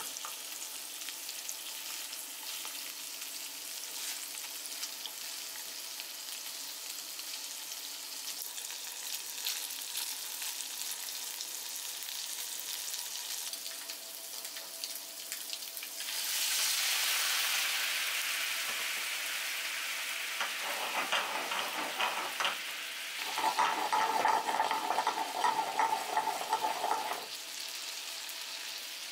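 Pieces of salmon sizzling in hot butter and oil in a frying pan, a steady frying hiss. It swells to a louder sizzle about halfway through, then turns rougher and louder for several seconds near the end.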